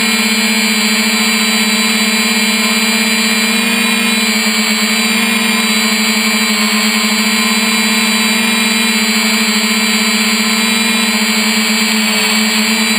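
3DR Iris+ quadcopter's four electric motors and propellers running in flight, a loud steady drone with a strong low hum, heard up close from the camera mounted on the aircraft. The hum wavers slightly around the middle and again near the end as the motors adjust.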